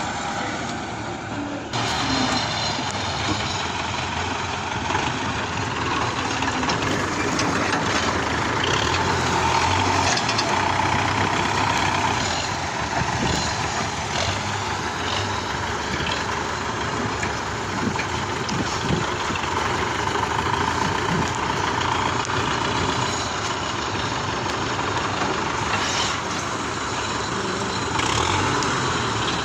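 MTZ Belarus tractor's diesel engine running steadily while it loads logs, getting louder about two seconds in, with a few knocks along the way.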